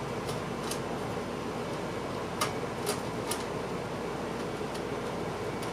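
Steady fan-like hum with a few light, sharp clicks of small plastic and metal parts being handled, five or so in the first three and a half seconds.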